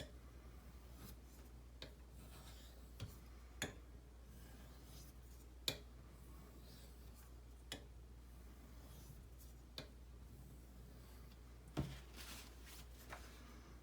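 Knife blade being drawn across a fine-grit Norton water stone in light finishing strokes: faint scraping, with a sharp tick about every two seconds as the blade is set down or lifted.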